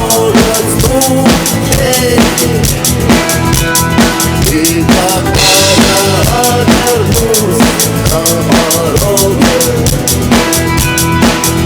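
Drum kit played along to a recorded rock song during its instrumental passage with no singing: a steady beat of bass drum and snare under the song's melody line with bending notes. A cymbal crash lands about five and a half seconds in.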